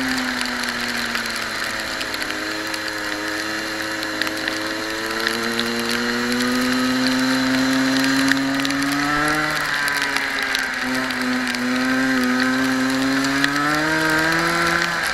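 Racing kart engine running at speed. Its pitch drops about a second in as the throttle comes off for a corner, then climbs steadily under acceleration. It dips again around the ten-second mark and climbs once more near the end.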